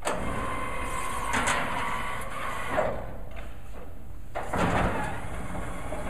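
Massey Ferguson 1745 round baler's mesh wrap system being run into the mesh feed position: a steady mechanical whir, with a faint tone over the first two seconds and a few clunks.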